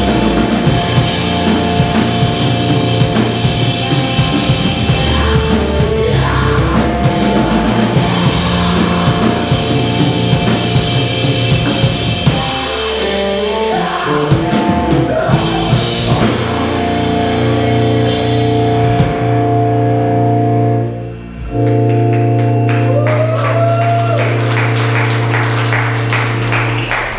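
Live rock band playing: electric guitar, bass guitar, drum kit and vocals. About 21 seconds in there is a brief break, after which the guitars and bass hold one sustained chord under drum hits as the song closes.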